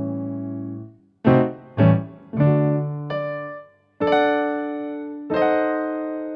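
Keyboard music: chords struck and left to fade, with two short stabs about a second in, then longer held chords.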